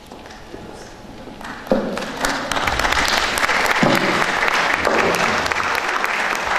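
Audience applause, starting about a second and a half in and quickly building to steady, full clapping.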